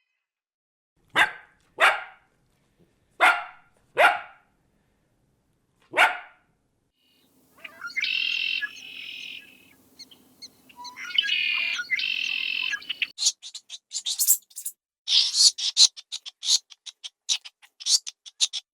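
A dog barks five times, a second or two apart. Then birds call: two longer pitched calls, followed by a rapid run of short chirps.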